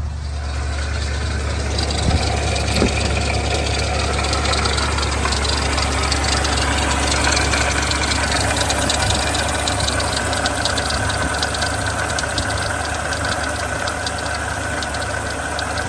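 BMW X5 E70 4.8i V8 engine idling, with steady rattling and a slightly squeaking belt from the front of the engine. The rattle comes from the water pump, whose bearing is failing.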